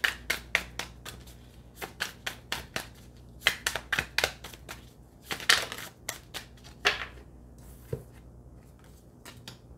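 A tarot deck being shuffled by hand: a run of irregular crisp card clicks and riffling rustles, then one sharp tap near the end as a card is laid on the wooden table.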